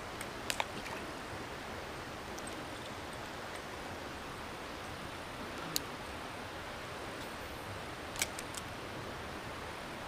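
Small mountain creek running steadily over rocks, an even rushing hiss, with a few sharp clicks about half a second in, near six seconds and about eight seconds in.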